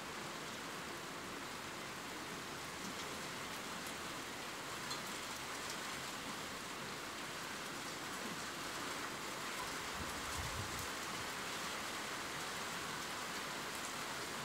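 Steady rain falling, an even hiss with scattered drop ticks, and a short low rumble about ten seconds in.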